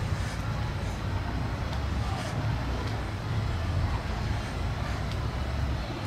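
Low, steady rumble of street traffic, with a few faint clicks.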